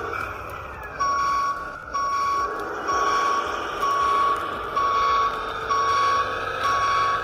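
Construction vehicle's reversing alarm beeping in an even rhythm, about once a second, starting about a second in, over the steady hum of a running engine.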